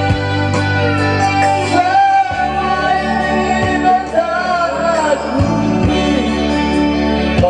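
A man singing a song into a microphone over a band's musical backing, with sustained bass notes underneath.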